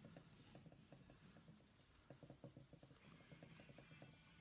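Faint scrubbing of an alcohol wipe on an AR-15 lower receiver, quick short strokes in several spurts, as the engraved markings are cleaned before colour fill.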